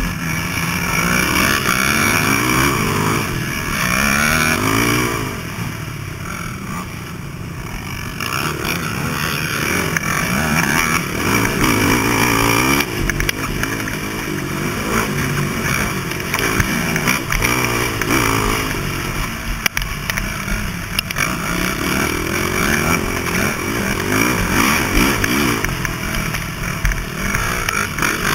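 Dirt bike engine being ridden hard off-road, its pitch climbing and dropping over and over as the throttle opens and closes and the rider shifts gears.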